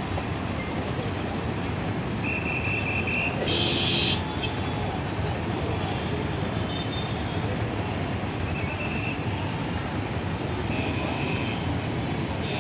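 Steady road traffic noise, with a short run of high pulsed tones about two seconds in and a brief louder burst with a high tone just after.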